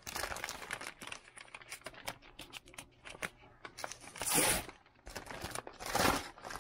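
A paper shipping bag being torn open and handled: crackling and rustling paper with a few short rips, the loudest about four seconds in and again near the end.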